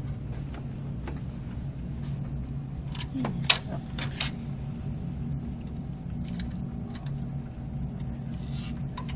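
Light clicks and knocks of computer parts being handled and fitted on a motherboard, the loudest a sharp click about three and a half seconds in, over a steady low hum.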